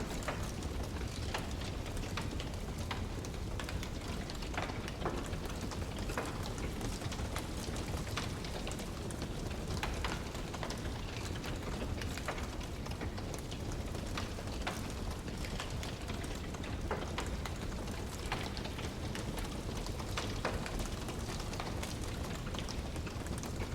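Wood fire crackling: irregular sharp pops and snaps scattered over a steady low rumble.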